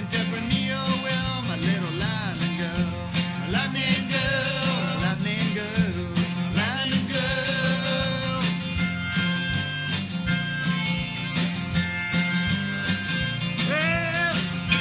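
Country-rock band playing, with drums, bass and guitar. A lead line bends up and down in pitch, with a few longer held notes in the second half.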